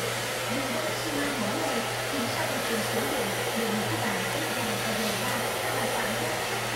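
Handheld hair dryer running steadily as it blows through long hair, an even rushing of air over a low, steady motor hum.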